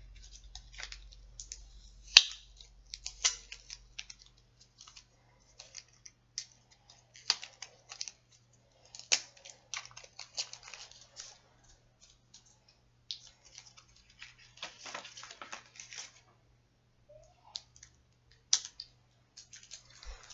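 Irregular light clicks, taps and rustling of small objects being handled close to the microphone, in scattered bursts with short gaps between.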